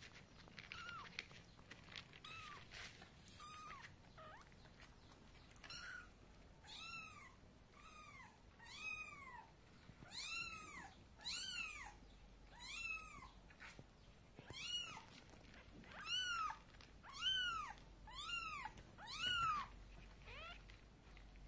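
Kittens meowing: a string of high, thin meows, about one a second, each rising and then falling in pitch, faint at first and growing louder over the second half.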